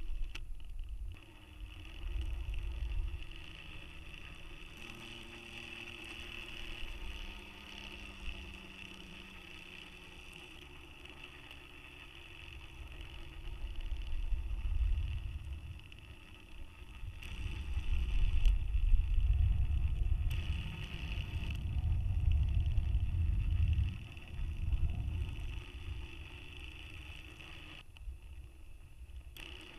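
Small DC motor turning a balloon payload's camera to cancel the package's spin, heard from inside the payload. Low hums shift pitch in steps and a faint high whine cuts out a few times, over an uneven low rumble that swells and fades, loudest a little after the middle.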